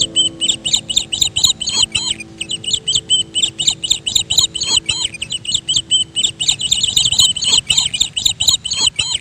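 Songbird chirping in a fast, unbroken series of short high calls, several a second, which cuts off abruptly at the end. Soft background music with held notes fades out during the first few seconds.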